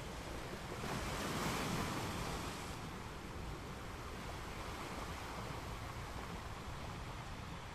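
Ocean waves breaking: a wave crashes about a second in and washes out by about three seconds, followed by a steady hiss of surf.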